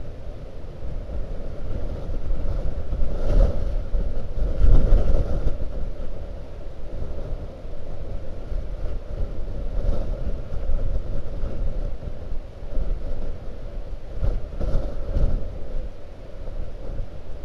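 Blizzard wind buffeting the microphone in rising and falling gusts, strongest about three to five seconds in and again near the end.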